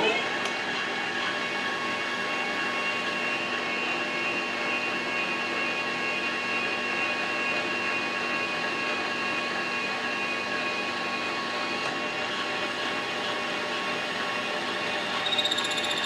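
Metal lathe running with its chuck spinning: a steady gear whine of several fixed tones over a running hum. It gets briefly louder, with a higher tone, about a second before the end.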